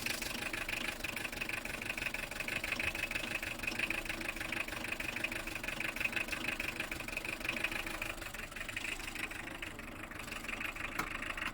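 Toyota 3C-TE 2.2 four-cylinder turbo-diesel idling unevenly with diesel clatter: a lumpy, rough idle caused by low compression in cylinder no. 4.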